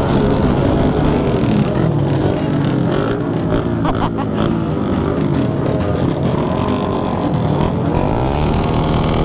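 Several motorcycle engines running close together at low speed, their throttles blipped now and then, with the pitch climbing near the end as one is revved up.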